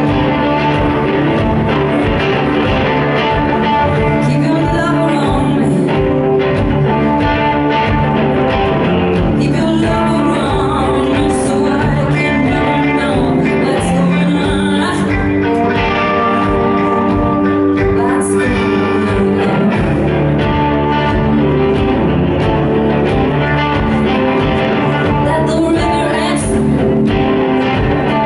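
A live band song: electric guitar playing with a woman singing the lead vocal.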